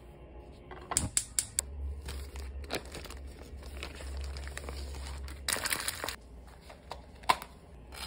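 Crinkling and rustling of a paper towel and a plastic smoked-salmon pouch being handled: scattered short crackles and clicks, with a longer burst of crinkling a little past halfway.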